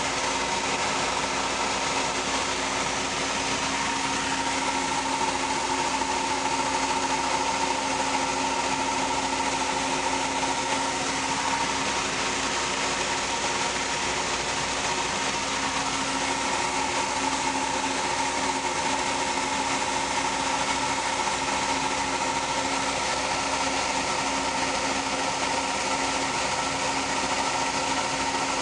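John Deere 3300 combine running steadily at working speed while its grain hopper is unloaded, a constant machine hum with a steady whine.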